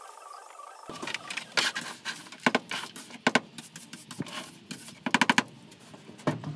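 Knocks, clicks and scrapes of hand work on a van's shelving, metal and wood being handled and loosened, with a quick run of about five clicks about five seconds in.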